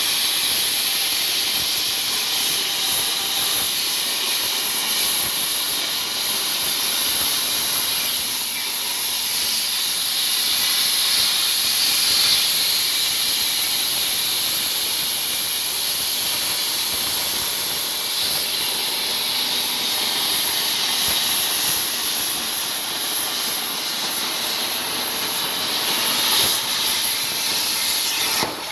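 CNC plasma torch cutting 2 mm steel sheet: the arc and its air jet give a loud, steady hiss.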